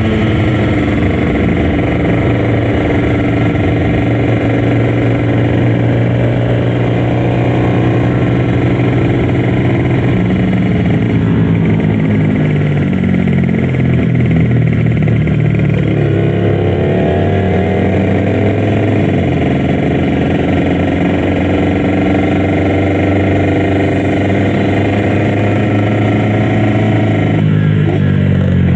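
Two-stroke Kawasaki Ninja RR 150 engine running at high revs while riding. Its pitch holds steady, then falls for several seconds as the bike slows, climbs again about halfway through, and dips briefly before rising once more near the end.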